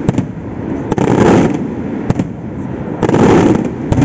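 Fireworks shells bursting overhead: two heavy booms that spread and echo for about half a second, one about a second in and one about three seconds in, with sharper single cracks in between.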